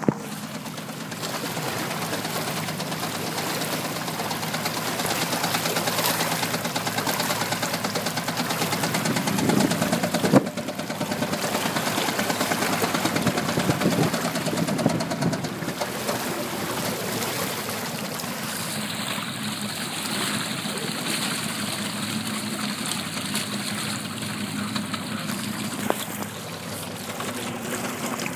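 Yamaha F225 V6 four-stroke outboard idling with a fast, steady knock in time with the engine: rod knock, the sign of a worn connecting-rod bearing. Water splashes along with it, and a single sharp click sounds about ten seconds in.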